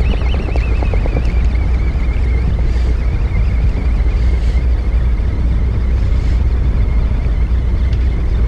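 Steady low rumble of wind and the fishing boat on the microphone, with a thin high whine that starts at the outset, drops slightly in pitch, then holds steady almost to the end.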